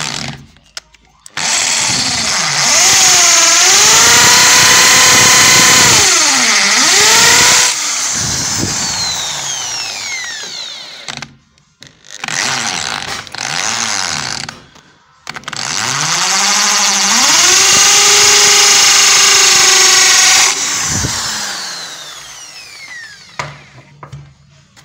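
Electric drill with a masonry bit boring into a plaster wall. There are two long runs of several seconds, one for each hole, with a few short bursts between them. The motor pitch dips as the bit bites, and the motor whines down after each run.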